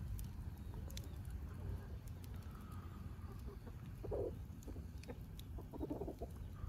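Chickens clucking in short runs, once about four seconds in and again near the end, over a low steady rumble.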